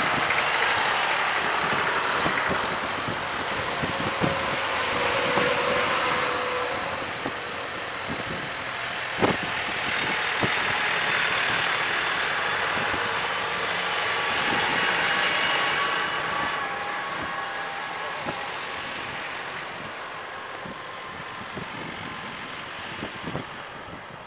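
A procession of farm tractors, vintage and modern, driving past one after another, their diesel engines swelling and fading as each goes by, with a car or two at the tail; one sharp click about nine seconds in, and the engine sound dies away near the end.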